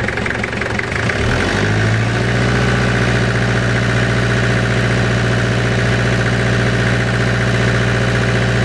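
Toyota 5L four-cylinder diesel engine idling just after start-up. Its beat is uneven for about the first second and a half, then it picks up slightly and settles into a steady idle. It is running to circulate freshly filled coolant through the new heater core.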